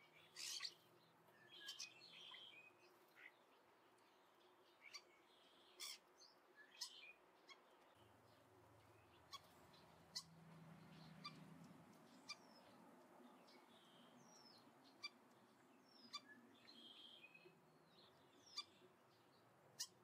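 Faint, sharp taps of a Steller's jay's beak pecking seed in a small feeder, scattered and irregular, with brief high bird chirps between them.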